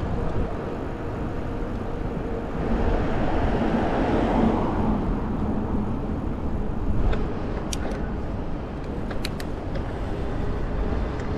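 Street riding noise heard from a handlebar-mounted action camera on an e-bike: a steady low rumble of wind and tyres, with a car swelling up and fading away about three to five seconds in. A few sharp clicks come near the end.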